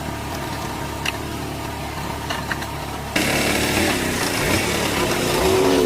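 A motor running steadily with a few clicks, which turns suddenly louder about three seconds in.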